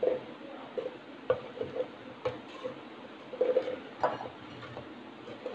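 A serving spoon knocking lightly and irregularly against a clay cooking pot as cooked rice is scooped out, about a dozen short knocks with a slight ring.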